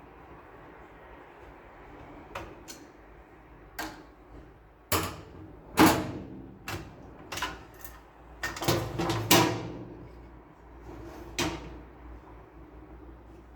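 Irregular clicks and knocks of printer parts being handled, loudest around six and nine seconds in, with a quick cluster just before nine seconds.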